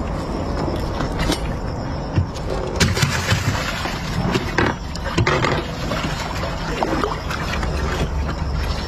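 Irregular splashing and knocking in the water beside a boat as a sucker fish is handled with a metal fish grabber, over a steady low rumble.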